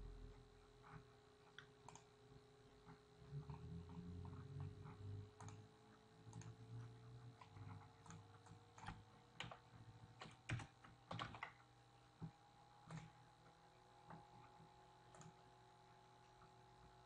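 Faint computer keyboard typing and mouse clicks, scattered and busiest in the middle, over a faint steady hum.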